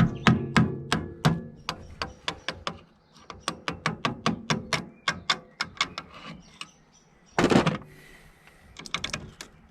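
Hammer tapping repeatedly on the steel parts of a car's front suspension, in quick sharp taps of about three a second with a short metallic ring. A louder clatter comes about seven and a half seconds in.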